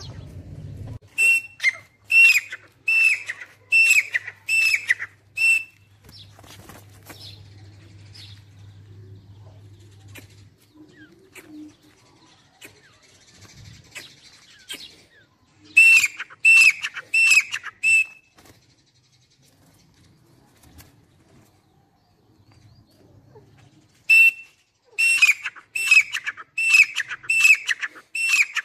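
Grey francolin calling: loud, shrill notes repeated about two a second, in three bouts near the start, around the middle and near the end.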